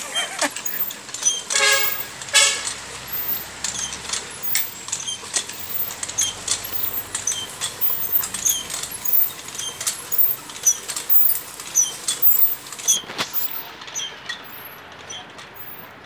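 Rusty iron hand water pump being worked by its handle, giving a rhythmic squeak and knock with each stroke, roughly one and a half strokes a second, dying away shortly before the end.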